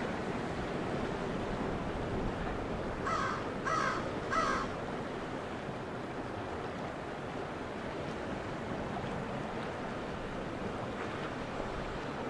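Calm ocean waves washing steadily on the shore. About three seconds in, a bird gives three harsh calls in quick succession.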